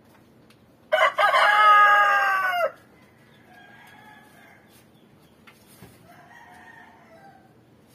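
A rooster crows once, loud and close, about a second in: a held call that drops in pitch at the end. Two fainter crows follow later.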